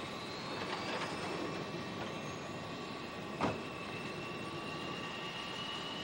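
Boeing 727 airliner's jet engines whining, with high tones slowly rising in pitch over a steady rushing noise. A single sharp thud comes about three and a half seconds in.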